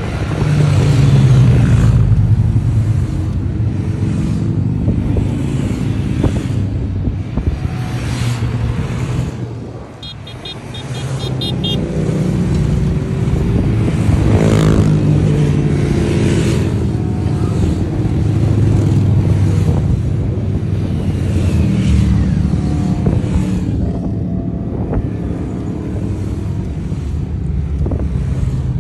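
A procession of motorcycles of mixed types, sportbikes and a big touring cruiser among them, riding past one after another at road speed. Each engine note swells and falls away as it passes, with a brief lull about ten seconds in.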